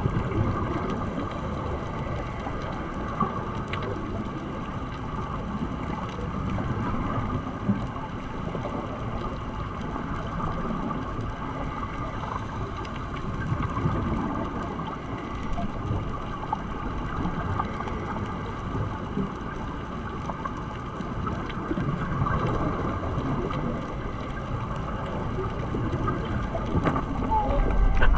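Muffled underwater noise picked up by a camera in a waterproof housing: a steady low rumble with faint scattered clicks, swelling louder near the end as the camera is swung quickly through the water.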